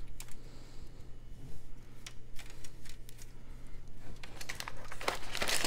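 Plastic miniature sprues handled, giving scattered light clicks and rattles as they are turned over and set down, with a flurry of clicks near the end.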